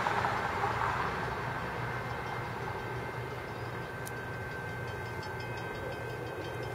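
Low, steady rumble of an approaching Metra commuter train's F40PH-2 diesel locomotive, still some way off, with a faint steady high tone over it. Road traffic noise fades away over the first second.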